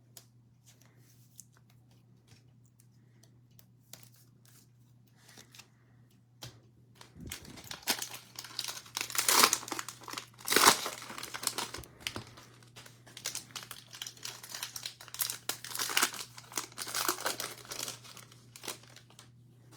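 Cellophane wrapper of a Prizm basketball card cello pack being torn open and crumpled. After a few faint clicks of handling, a long run of loud, dense crinkling starts about seven seconds in and goes on until near the end.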